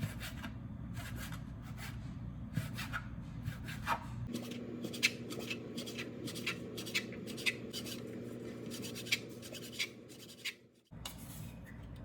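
Small handling sounds: a run of light clicks and taps with some rubbing, over a steady low background hum. The background sound changes abruptly twice.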